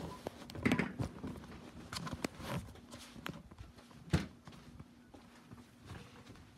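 Footsteps and handling knocks from a handheld phone being carried across a carpeted floor: irregular thumps and clicks, the loudest about a second in and again about four seconds in.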